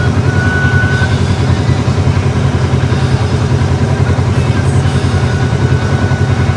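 Off-road 4x4 engine running steadily as the vehicle crawls over the rocky trail, with an even low pulsing and no revving.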